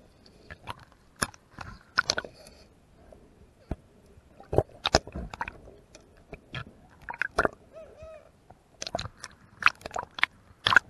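Irregular sharp clicks and crackles picked up underwater by a camera in its waterproof housing during a freedive, some much louder than others.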